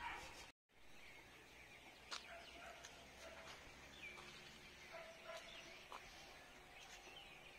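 Near-quiet outdoor ambience with faint, scattered bird chirps. The sound cuts out briefly about half a second in.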